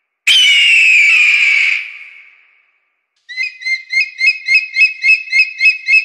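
Bird-of-prey calls: a loud high scream falling in pitch, lasting about a second and a half and fading away. After a pause comes a rapid series of high piping notes, about three a second.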